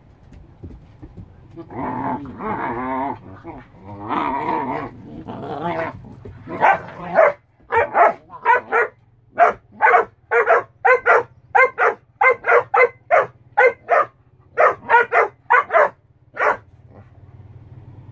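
German shorthaired pointers squabbling. First come a few drawn-out, wavering growling and whining vocalizations, then a run of about twenty short, sharp barks, roughly two a second, that stops near the end.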